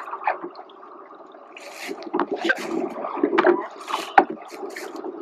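Rowing shell under way: uneven surges of water splash and rush from the oars, with a sharp knock about four seconds in.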